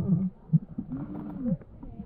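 A person's muffled voice: short low groans and one drawn-out moan, without clear words.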